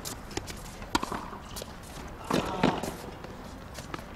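Tennis rally on a hard court: sharp pops of the ball off the rackets and the court, about a second apart, with the loudest strike about two and a half seconds in, and the players' footsteps between them.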